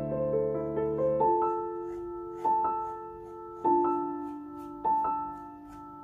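Background piano music: slow, gentle chords and single notes, a new one struck about every second and left to ring and fade.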